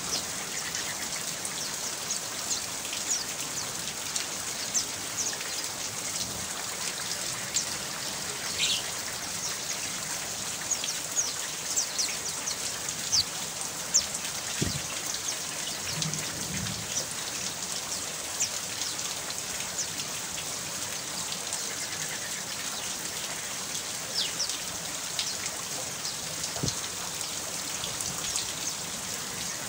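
Steady rain, a dense patter of drops with many sharp individual drips hitting a surface.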